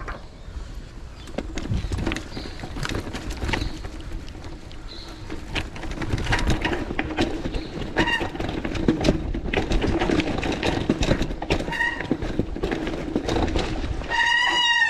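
A bicycle rattling and clattering as it is ridden fast over a rough dirt track, over a low rumble, with a few short high squeaks in the middle and a longer squeal near the end.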